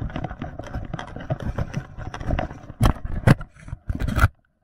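Hurried footsteps crunching through snow and dead leaves, irregular and quick. A few louder thumps come about three seconds in and just after four, then the sound cuts off suddenly near the end.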